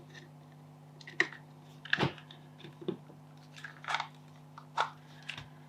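Plastic headphone housing parts being handled and pressed together: a string of irregular small clicks and taps, the sharpest about a second in and about two seconds in. A faint steady hum underneath.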